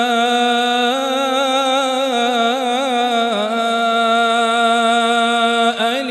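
A male reciter chanting the Quran in melodic tajweed style, drawing out one long ornamented vowel with wavering turns; the pitch steps down about halfway through and the voice briefly breaks off near the end.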